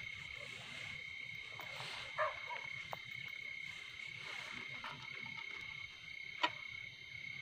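A steady, high-pitched night chorus of calling animals, with a sharp click about six and a half seconds in and a fainter click near two seconds.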